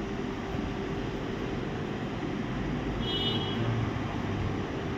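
Steady background rumble and hiss with a low hum, and a short high-pitched electronic beep about three seconds in.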